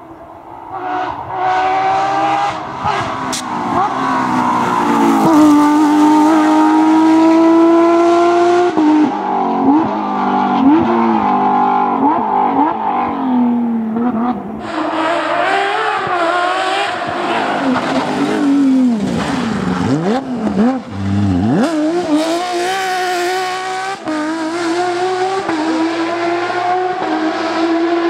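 Porsche 911 GT3 rally car's flat-six engine revving hard on a stage, its pitch climbing through each gear and falling on lifts and downshifts. The sound changes suddenly about halfway through to a second pass with more dips and blips.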